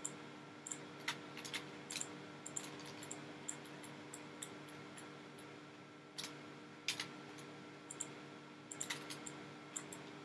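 Irregular clicks of a computer mouse and keyboard, some in quick pairs, over a steady faint hum.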